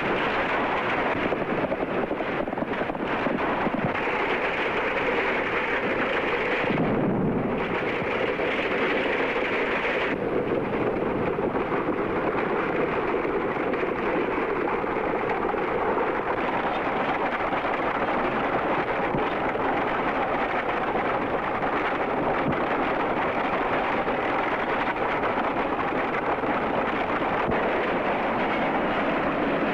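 Continuous loud rumbling noise from an early sound-film soundtrack, with a brief change about seven seconds in.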